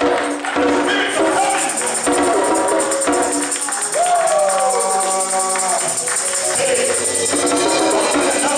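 Church worship music: singing over a steady high jingling rhythm, with one long sung note sliding down in pitch near the middle.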